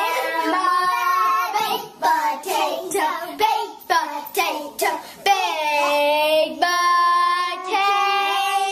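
A child singing a tune and holding long notes near the end, with a few sharp hits in the middle.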